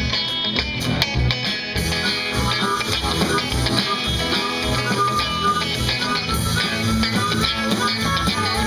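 Live blues band playing: electric guitar and drum kit with a steady beat, and a harmonica cupped against a vocal microphone and played through the PA, its held notes coming forward from about six seconds in.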